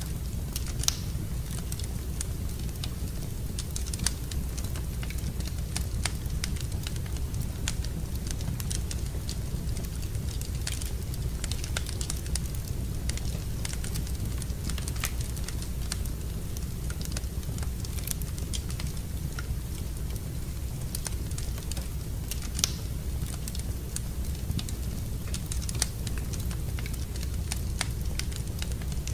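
Wood fire burning in a fireplace: a steady low rumble of the flames with irregular crackles and a few sharper pops.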